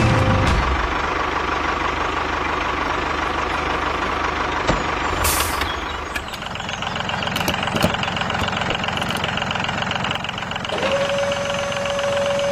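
A small vehicle's motor running steadily; about eleven seconds in a steady high tone joins it.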